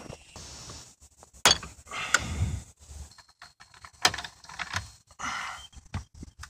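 Scattered clicks and knocks, with short stretches of scraping and rustling, from a screwdriver and hands working on a car's gear-shifter assembly and plastic console trim.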